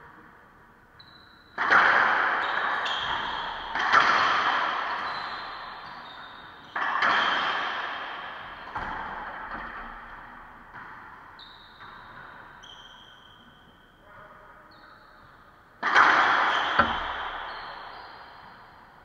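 Racquetball hits in an enclosed court: five loud, sharp cracks of the ball off racquets and walls, each followed by a long echo that dies away. Four come close together in the first half; the last comes after a pause, near the end.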